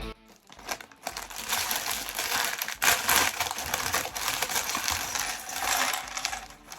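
Loose plastic LEGO pieces clattering and rattling against each other, a dense run of small clicks that starts about a second in, as pieces are poured or sifted through by hand.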